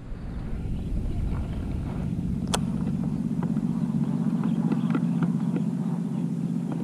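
A small engine running steadily with a low, rapid drone. A single sharp click comes about two and a half seconds in, and a few light ticks follow later.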